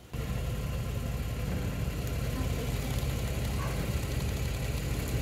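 Car engine idling steadily, cutting in suddenly at the start.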